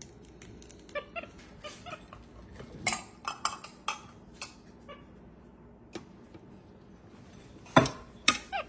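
Capuchin monkey giving short squeaks and chirps while kitchen utensils and a whisk clatter on a metal baking sheet, with scattered clicks and a sharp knock near the end as the loudest sound.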